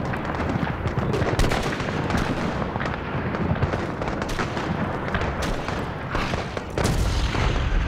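Battlefield gunfire and shelling: scattered sharp shots over a continuous low rumble, with a heavy explosion boom near the end.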